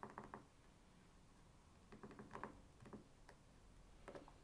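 Faint clicking of keys being pressed on a CAT S22 Flip phone's keypad to type a word, in short runs of quick presses with pauses between them.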